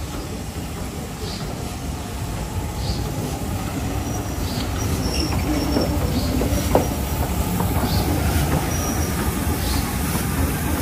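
LMS Stanier Black Five steam locomotive No. 44806 rolling slowly past with its coaches, a low rumble of wheels on rail that grows louder as it comes alongside. Light regular clicks come about once a second, and high wheel squeals are heard briefly twice.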